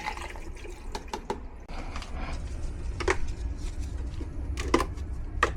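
A few scattered light clicks and knocks of tools and parts being handled, over a low steady rumble.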